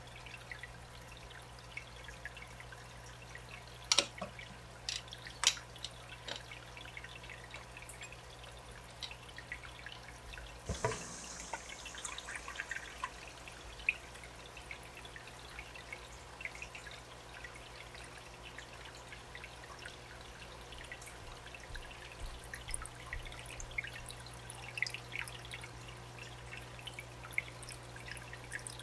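Glass lily-pipe outflow and its clear clip being handled, with two sharp clicks a few seconds in. From about eleven seconds in, water from the SunSun HW-603B canister filter's glass outflow splashes and trickles onto the aquarium surface, the height set so the current ripples the surface to clear its oil film, with small drips throughout. A steady low hum runs beneath.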